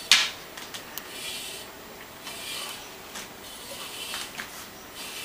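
A small metal-tined rake scraping through a short-haired cat's coat on a doormat in a series of rasping strokes, starting with one sharp, loud scrape.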